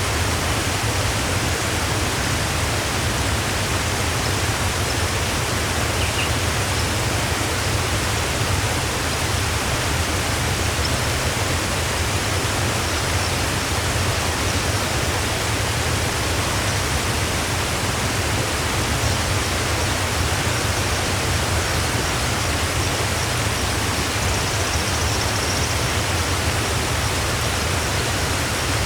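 Steady, unbroken rush of a waterfall, with faint high bird chirps now and then.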